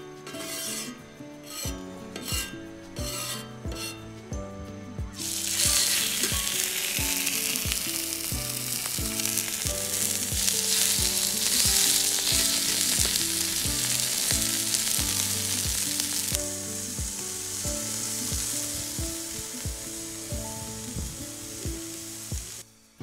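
Beef steaks searing on a thick iron griddle plate, sizzling loudly from about five seconds in and easing off somewhat later, stopping just before the end. Background music with a steady beat plays throughout.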